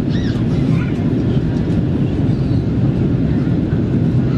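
Steady low rumble of airflow and jet engines inside the cabin of an Airbus A330-200 airliner on approach, with faint voices briefly in the first second.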